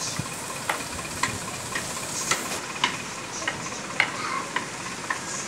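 Rain falling with a steady hiss, and large drops ticking sharply on a hard surface close by, roughly every half second.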